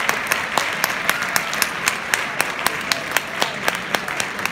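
Audience applauding, a dense wash of clapping, with one clapper close by standing out in a steady beat of about four claps a second.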